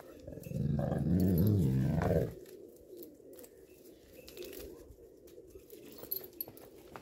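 Pakistani bully dog giving one low growl that lasts about two seconds, followed by a few faint clicks.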